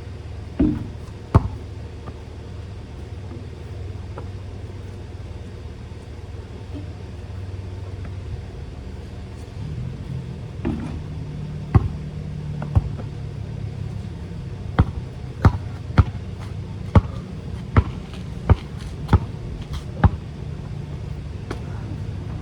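Basketball bouncing on an outdoor court: a couple of single bounces near the start, then after a long pause a steady dribble of about one bounce every 0.7 seconds in the second half, over a steady low hum.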